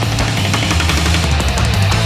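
Background rock music with distorted electric guitar and a driving beat.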